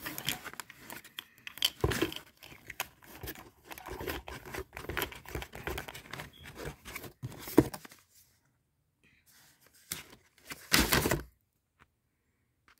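Crumpled kraft packing paper and packaging rustling, crinkling and tearing as hands dig through a box, steadily for about eight seconds. Then it goes quiet, with one more short burst of rustling about ten and a half seconds in.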